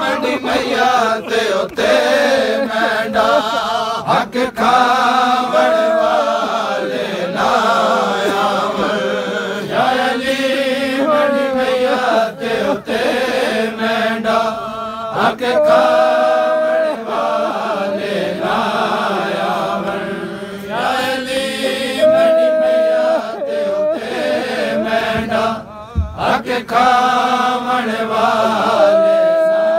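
Group of men chanting a Shia mourning lament (noha) together in sung phrases, a leader reading the verses from a book with the others joining in.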